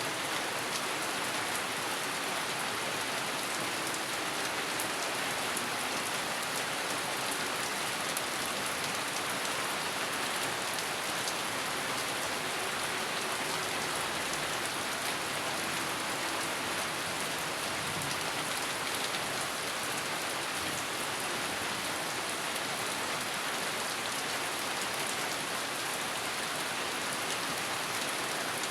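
Steady rain falling, a dense, even patter of drops hitting a surface.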